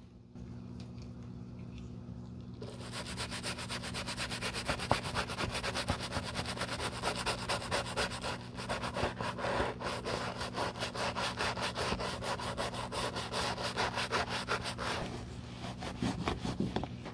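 Soft-bristled brush scrubbing the inside lining of a leather loafer in rapid, even back-and-forth strokes, starting about three seconds in. Near the end it gives way to softer cloth rubbing on the leather.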